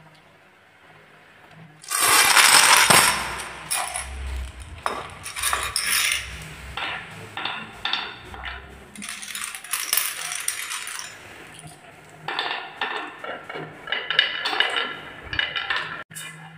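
Marbles rolling down a wooden marble run's wavy grooved tracks, rattling and clicking against the wood and each other, starting about two seconds in and going on in uneven runs of clatter.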